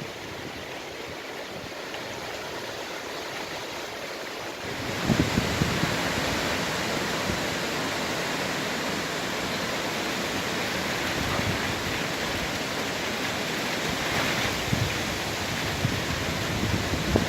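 Heavy thunderstorm rain, a steady hiss that swells louder about five seconds in with a brief low thump, then holds level.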